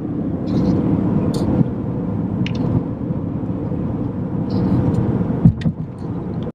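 Steady road and engine noise heard inside a moving car's cabin at highway speed, with a short knock about five and a half seconds in.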